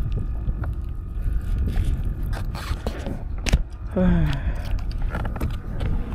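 Low wind rumble on the microphone aboard a fishing kayak, broken by a few sharp knocks and scrapes. About four seconds in there is a short falling vocal sound.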